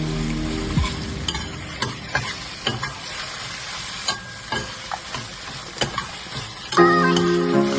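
Food frying in hot oil in a pan, a steady sizzle with the clicks and scrapes of a utensil stirring it. Background music comes back near the end.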